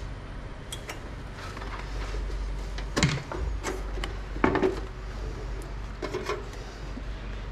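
Scattered sharp clicks and knocks as hands handle desktop computer hardware, over a steady low hum.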